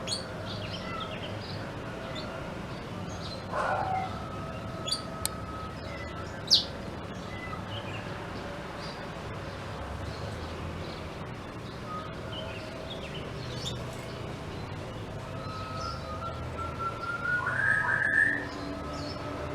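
Black-throated canary (blackthroat) giving scattered short chirps and whistles, with a sharp rising whistle about six and a half seconds in and a louder rising phrase near the end, over a steady low hum.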